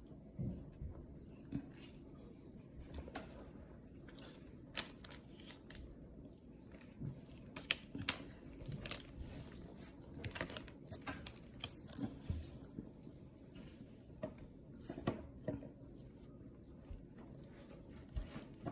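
A person chewing a crunchy snack, with scattered small crunches and clicks.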